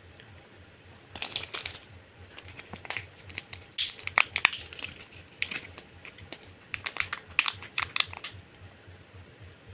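Kinder Joy egg being unwrapped and opened by hand: wrapper crinkling and small plastic clicks in quick clusters, starting about a second in and stopping a little after eight seconds.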